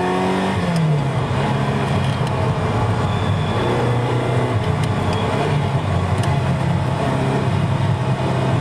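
Ferrari 328's 3.2-litre V8 heard from inside the cabin while driving on a circuit. The engine note drops in pitch about half a second in, then runs at a fairly steady pitch under a light haze of road and wind noise.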